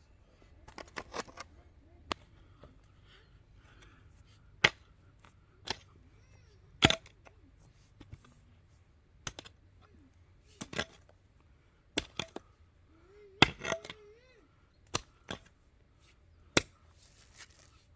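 Sharp, hard strikes, one at a time or in quick pairs at irregular intervals, about eighteen in all, like blows of a hand tool. The loudest come about five, seven and thirteen seconds in.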